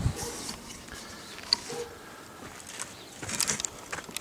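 Faint handling noise as a camera is moved in close: light scuffs and clicks, with a sharp click about one and a half seconds in and a brief scuffing near the end.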